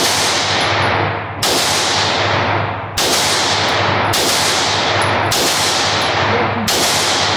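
Glock 17 9mm pistol fired six times in slow, steady succession, one shot about every one to one and a half seconds, each report ringing on in the echoing indoor range. The project pistol is cycling and running shot after shot.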